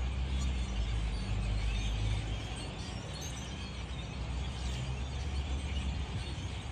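Faint bird chirps over a steady low outdoor rumble.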